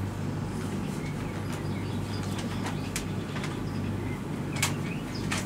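Steady low hum of a hall's room tone, with a few faint clicks and rustles scattered through it.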